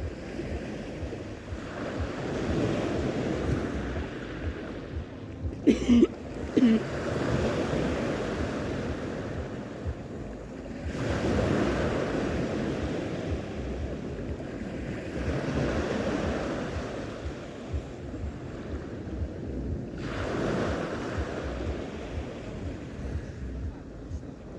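Sea waves washing onto the shore, swelling and falling back about every four to five seconds, with wind on the microphone. Two brief louder sounds cut in about six seconds in.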